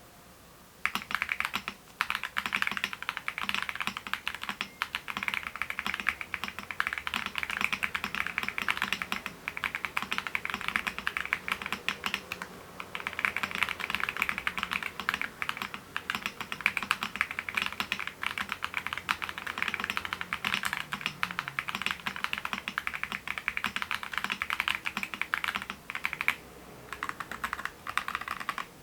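Fast, steady typing on a Percent Studio Luna-70 mechanical keyboard with MZ Industry Orange switches, ABS keycaps, an aluminium plate and a leaf-spring mount. The keystrokes start about a second in and pause briefly twice, once midway and once near the end.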